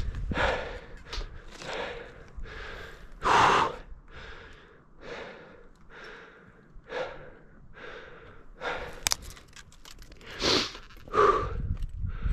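A person breathing hard and heavily close to the microphone, with rushy in-and-out breaths about once a second. One sharp click comes about nine seconds in.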